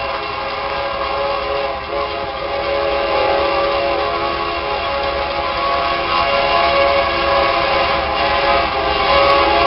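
Union Pacific diesel locomotive's air horn sounding one long, steady chord, slowly growing louder.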